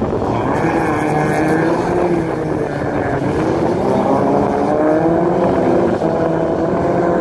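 Engines of 1600-class rallycross cars racing, revving up and down so their pitch rises and falls, over a steady rush of noise.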